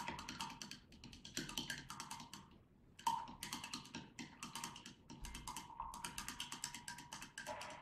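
A wooden stick stirring liquid in a stemmed wine glass, knocking against the glass in quick runs of light ticks, several a second, with two brief pauses.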